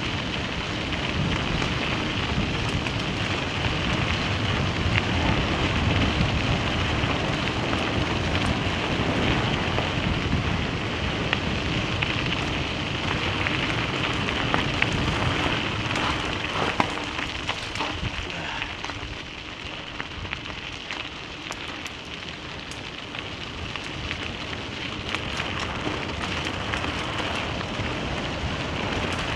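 Vehicle driving on a loose gravel road: a steady crunching hiss of tyres on gravel with road and engine rumble underneath, a few sharp ticks scattered through it, easing slightly for a few seconds past the middle.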